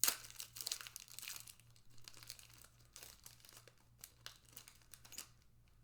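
A foil trading-card pack being torn open, a sharp rip at the start, then the wrapper crinkling as the cards are pulled out.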